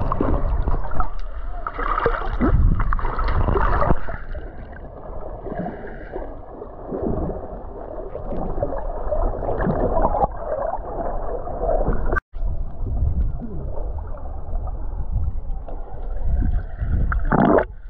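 Muffled water gurgling and sloshing over a heavy low rumble, cutting out for a moment about twelve seconds in.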